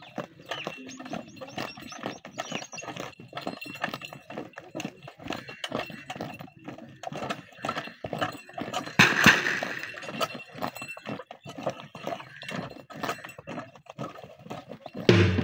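A pair of yoked bulls galloping in circles on loose earth, their hooves drumming fast and unevenly. A louder clatter comes about nine seconds in.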